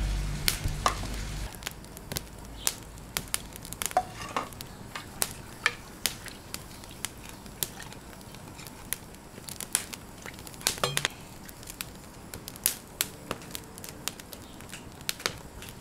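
Onions frying in a steel pot over an open wood fire: a faint sizzle under many irregular sharp clicks and crackles from the fire and the metal skimmer stirring against the pot. Background music fades out in the first second or two.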